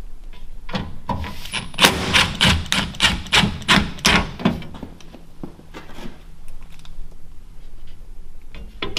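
Cordless Milwaukee Fuel drill driving screws into a fireplace's metal trim: a quick run of sharp knocks, about three a second, starting about a second in and lasting some three seconds, then quieter with a few scattered clicks.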